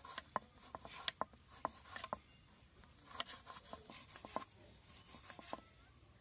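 A knife slicing a tomato on a wooden cutting board: soft cuts through the flesh with irregular taps as the blade meets the wood.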